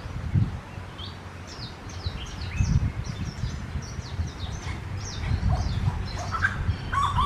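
Wild birds chirping: a quick run of many short, high, falling chirps, over a low uneven rumble.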